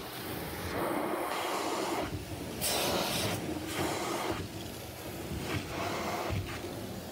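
Carpet extraction wand being pushed and pulled across shag carpet, its hot-water spray and vacuum suction making a rushing noise that swells and eases with each stroke.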